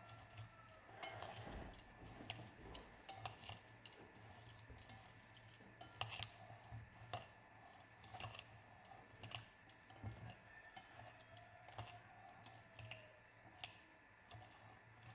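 Salad being tossed with metal tongs in a glass bowl: faint, irregular clicks of the tongs against the glass as the leaves are mixed.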